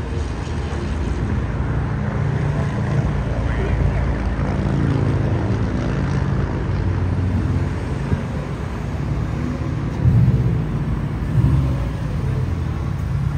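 Subaru Impreza WRX hatchback's turbocharged flat-four engine running at low speed as the car rolls past, with two short rises in engine sound near the end.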